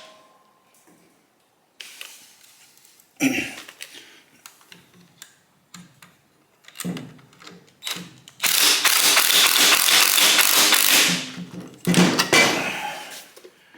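Hand tools working on the exhaust fittings: scattered metallic clicks and knocks, with a loud rasping run of about two and a half seconds past the middle, like rapid ratcheting.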